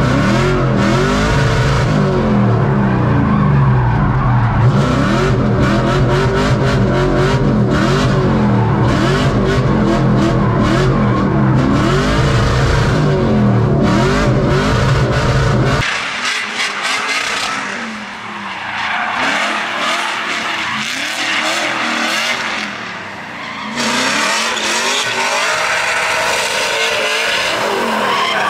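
LS V8-swapped Nissan 350Z drift car's engine revving up and down over and over through a drift, with tyres skidding, heard from inside the cabin. About halfway through the deep engine sound drops away abruptly, leaving a thinner engine and tyre sound.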